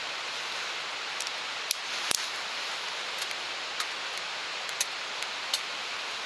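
Wood fire catching in a small titanium folding stove: sharp snaps and crackles of burning kindling and twigs, about one a second and the loudest about two seconds in, over a steady hiss.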